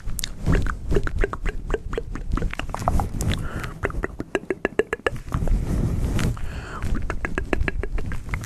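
Close-miked ASMR 'plucking' sounds: runs of quick clicks and pops, several a second, with low rustling from hands moving close to the furry microphone cover.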